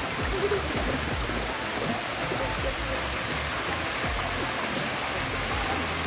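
Waterfall water rushing and cascading over rocks, a steady even rush, with faint background music.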